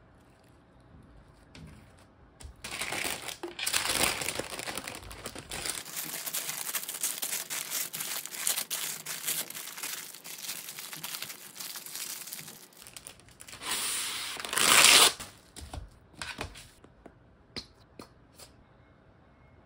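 Kraft cooking paper crinkling and rustling as it is folded and pressed tightly around a thick sandwich, with a louder burst of crumpling about fourteen seconds in. A few light clicks follow near the end.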